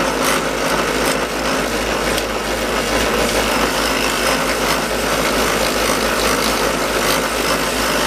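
Delta 8-inch benchtop drill press running with an abrasive disc in its chuck, a piece of sheet aluminum held against the disc to clean up its surface: a steady motor hum under a continuous grinding rasp.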